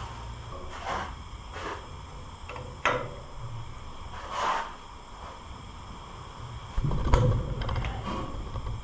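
Short scattered knocks and clinks of engine parts being handled and set down in a box, with a heavier thump about seven seconds in.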